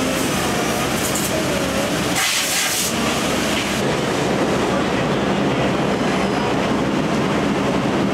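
Loud, steady din of seat-factory machinery, with a short burst of hiss about two seconds in.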